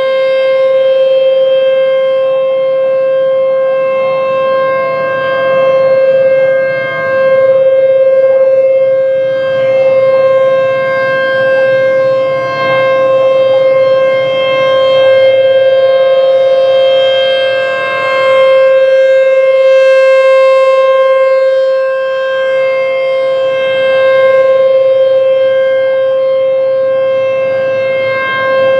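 ASC T-128 outdoor warning siren sounding a steady, loud, unbroken alert tone during its three-minute test. Its pitch holds steady while its loudness swells and fades every few seconds as the rotating siren head sweeps past.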